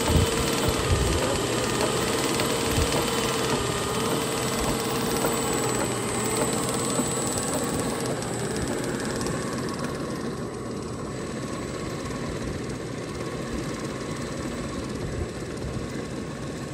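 A belt-driven tube-well pump set running: the 10 HP Teco three-phase electric motor makes a steady mechanical hum and whir as it turns the pump through a flat belt. A wavering whine rides on top and stops about eight seconds in.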